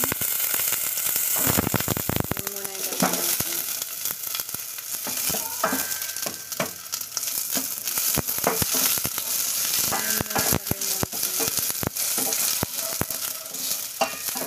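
Sliced onion sizzling as it fries in a very hot stainless steel pot, loudest in the first couple of seconds. Frequent clicks and taps come from a wooden spatula stirring against the pot.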